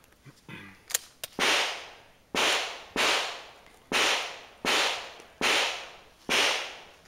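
Seven pistol shots, evenly spaced a little under a second apart, each a sharp report followed by a fading echo.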